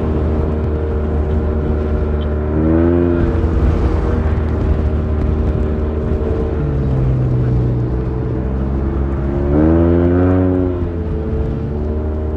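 Motorcycle engine running while riding, with a steady drone and two short throttle blips where the pitch rises and falls, about three seconds in and again near ten seconds.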